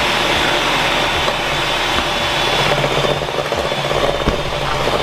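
Electric hand mixer running steadily on medium speed, beating cream cheese and powdered sugar in a bowl until well blended.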